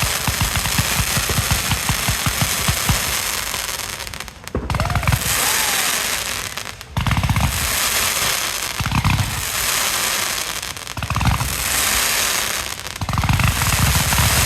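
Loud, rapid crackling bangs in a dense run, then several stretches of loud crackling noise of a second or two each, with short breaks between them.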